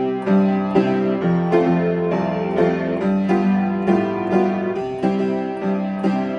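Upright piano played with both hands: chords over a walking bass line that steps from note to note, with keys struck about twice a second.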